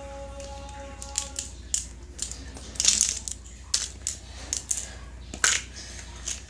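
Small plastic surprise-egg capsule being pried open and its contents handled: a string of sharp clicks and rattles, with a louder crinkling rustle about three seconds in.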